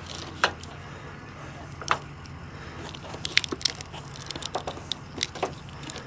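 Plastic wire loom and wires being handled, crackling and clicking as the wires are worked into the loom: a scatter of irregular small clicks and rustles.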